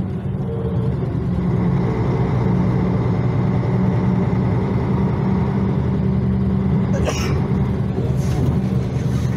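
Karosa LC735.20 coach's diesel engine running under way, heard from inside the passenger cabin as a steady low drone that builds slightly over the first couple of seconds. A brief hiss cuts in about seven seconds in.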